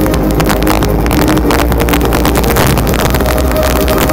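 Fireworks going off in a dense barrage, a rapid jumble of bangs and crackles over a steady low rumble, loud. Show music plays underneath.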